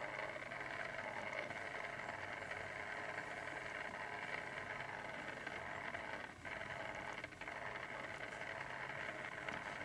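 Steady whir with a low hum from a small electric motor, most likely the motorised display turntable turning the GoGo Drill toy, dipping briefly twice about six and seven seconds in.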